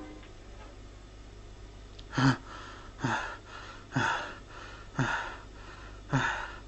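A man gasping for breath: five hard, voiced exhalations about a second apart, beginning about two seconds in, each dropping in pitch.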